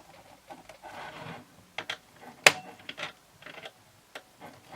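Small clicks and scraping from a screw being handled and fitted into a plastic remote-control casing, with one sharp click about two and a half seconds in.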